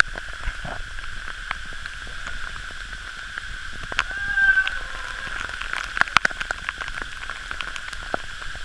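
Waterfall spray and drops pattering and clicking on the camera housing over a steady rush of falling water, with a short call about four seconds in.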